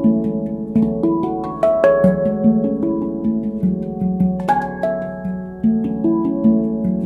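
Elysian Instruments handpan tuned to F# Pygmy, played with the hands in a free improvisation: a steady stream of struck notes, each ringing on and overlapping the next. Higher notes come in about four and a half seconds in.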